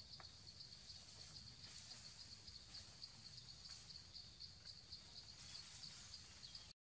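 Faint, steady chirping of forest insects: a high, rapidly pulsing trill at an even rate, over a soft hiss.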